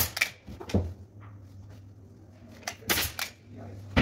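Pneumatic staple gun firing staples into a wooden sofa frame to fasten grey upholstery fabric: a few sharp clacks in the first second and another quick group around three seconds in.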